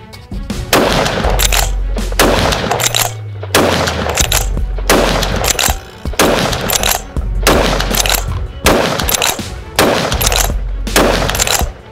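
Enfield Arms Genesis One .223 Remington rifle fired again and again, about one sharp shot a second, with background music underneath.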